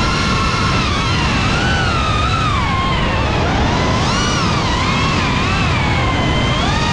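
Motors of a GEPRC CineLog35 FPV drone whining, the pitch gliding up and down continuously with the throttle, over a steady rushing noise.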